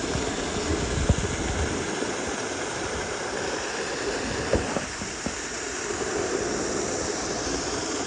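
Garden waterfall pouring down a rock wall: a steady rush of falling water, with a few brief low thumps, about a second in and midway.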